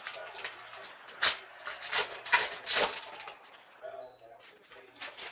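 Football trading cards being handled by hand: a run of papery swishes as cards are slid off a pack and dropped onto a stack, with a sharp click about a second in.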